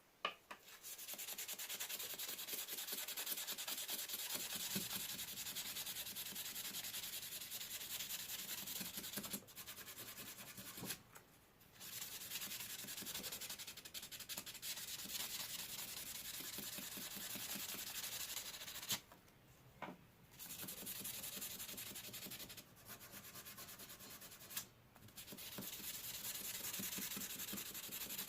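Hand sanding of a rusty pocket-knife blade with an abrasive: fast scrubbing strokes in long runs, broken by a few short pauses.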